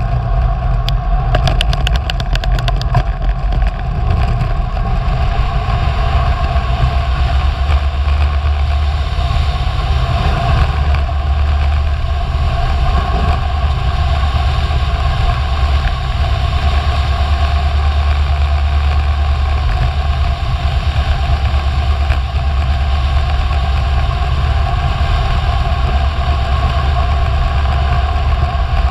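Wind buffeting a GoPro action camera on a road bike descending at speed: a loud, steady deep rumble. A quick run of clicks comes a second or two in.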